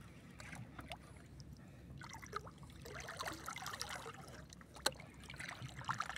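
Sea water lapping and trickling against the side of a small outrigger boat, with a sharp click about five seconds in and a few lighter clicks near the end.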